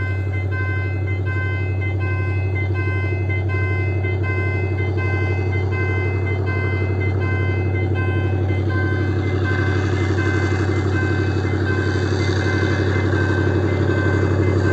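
Diesel-electric freight locomotive's engine running hard under load on a climb, with a deep steady hum, growing louder over the last few seconds. A thin beeping tone repeats about every two-thirds of a second over it.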